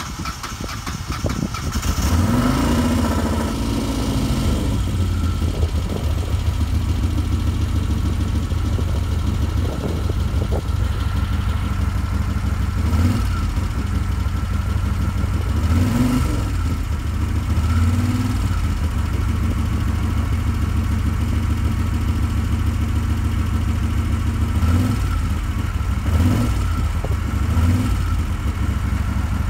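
Moto Guzzi Quota 1000's air-cooled transverse V-twin idling just after starting, with short blips of the throttle: one about two seconds in and several more later on.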